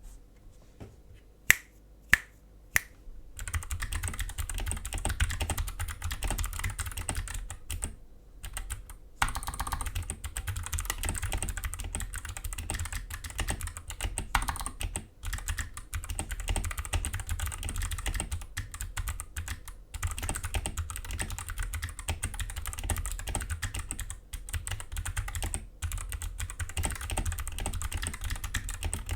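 Mechanical keyboard with Kailh Box Navy clicky switches being typed on: three loud single keypresses, then fast continuous typing, each keystroke a sharp click, with a brief pause about a third of the way through.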